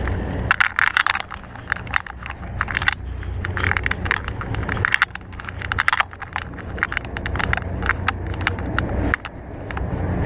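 Wind rumbling on an action camera's microphone, with frequent sharp clicks and rattles of handling noise throughout.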